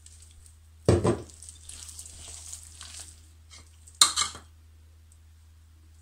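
Soft, sticky yeasted dough being mixed by hand in a glass bowl: a sharp knock about a second in, soft scraping and rustling for a couple of seconds, then a sharp clink about four seconds in.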